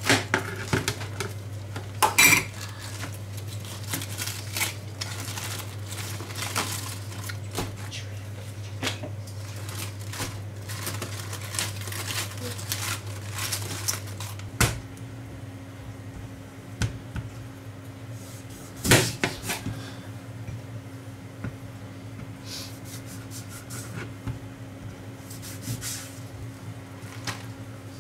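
A small knife cutting into a head of iceberg lettuce on a plastic cutting board, with crisp crunching and tearing as the leaves are pulled apart, and scattered knocks of the knife and leaves against the board. A steady low hum runs underneath and shifts higher about halfway through.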